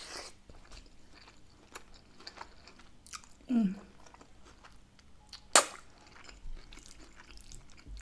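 Close-up chewing and mouth sounds of someone eating spaghetti bolognese, with many small wet clicks. About three and a half seconds in there is a short hum of the voice falling in pitch, and a sharp loud click about five and a half seconds in.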